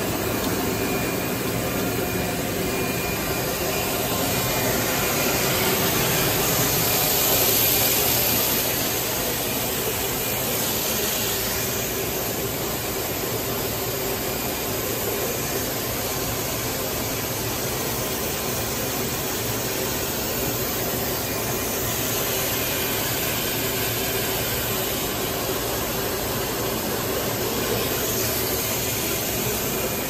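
Plastic spiral hose extrusion line running: steady machine noise, an airy hiss over a hum with a faint steady whine. It grows a little louder about a quarter of the way through.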